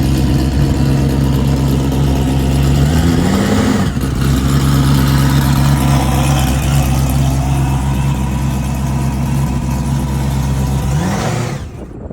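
A car engine running at steady revs. Its pitch rises and drops back about three seconds in, and rises again near the end, where the sound cuts off abruptly.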